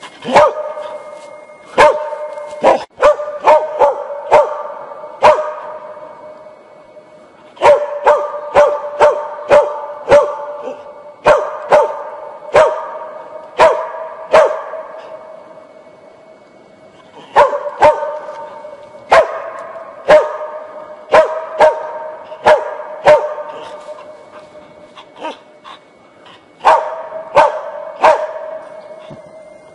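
Hunting dog barking in four runs of sharp barks, roughly two a second, with pauses of a few seconds between runs; each bark trails off in an echo.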